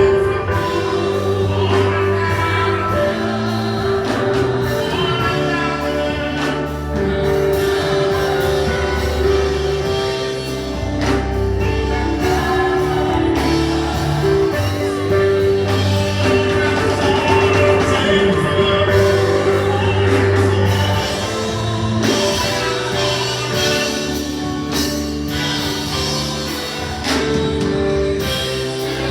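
Gospel music with singing and a band, bass and drums keeping a steady beat.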